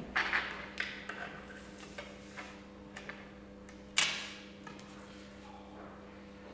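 Light clicks, taps and scratches of a pencil and compass on paper over a wooden table, with a sharper knock about four seconds in.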